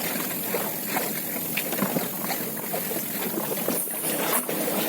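Water splashing and lapping around a small fishing boat, with scattered small irregular knocks and splashes.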